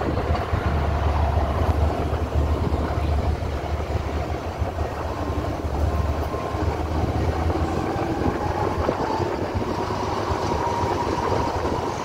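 Passenger train running, heard from on board: a steady low rumble of the moving train, with a faint whine that slowly rises in pitch in the second half.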